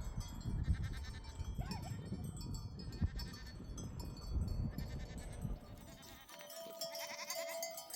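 Sheep bleating in a grazing flock over a low rumble. The rumble drops away after about five and a half seconds, and clearer, longer held calls come in near the end.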